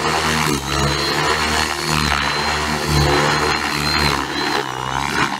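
Align T-Rex 600E electric RC helicopter flying low aerobatics: a high, steady whine from the motor and drive gears over the rotor's whoosh, which swells and fades as the helicopter pitches and turns.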